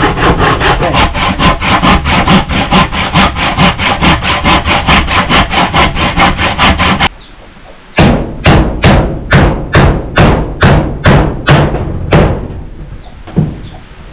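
A handsaw cutting through a thick wooden plank in fast, even strokes, about five a second. About seven seconds in it stops abruptly, and a slower series of strokes on wood follows, about two a second, fading out near the end.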